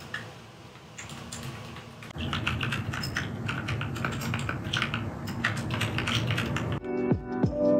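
Fast typing on a compact mechanical keyboard: rapid clacking key clicks, sparse and faint at first, then brisk and dense from about two seconds in. Piano music comes back in near the end.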